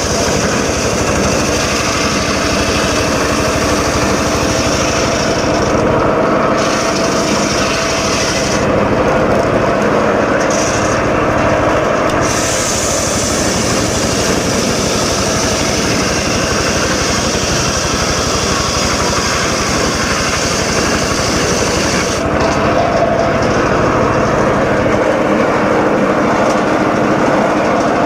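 Home-built circular saw running loud and steady while cutting teak wood, the upper hiss dropping away for a few seconds at a time several times.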